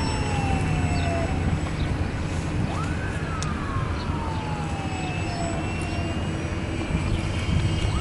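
Electric motor and propeller of a Seagull Extra 300 radio-controlled model plane in flight, its whine rising sharply and then sliding down in pitch as it makes passes, twice, with a third rise near the end. A steady low rumble runs underneath.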